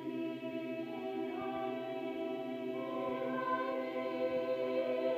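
A student choir of mixed young voices singing a cappella in harmony, holding long chords that shift a few times.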